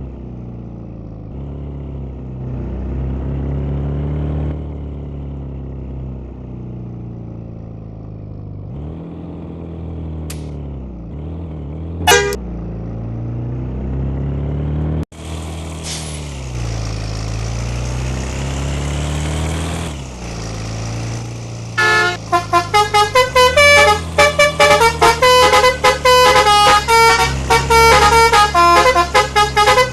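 A vehicle engine runs, its pitch rising and falling, with a short horn toot about twelve seconds in. From about two-thirds of the way through, a Basuri "telolet" multi-tone bus horn plays a rapid, loud tune of quickly changing notes.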